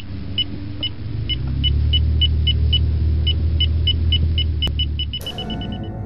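Synthetic computer-terminal beeps, short and at one high pitch, ticking out as text types on screen, over a steady low droning rumble; the beeps come faster and faster toward the end. About five seconds in, a hissing whoosh sweeps in and sustained music tones begin.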